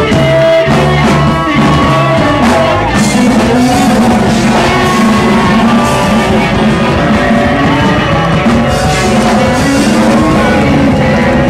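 Rock band music with a singing voice and guitar, loud and continuous.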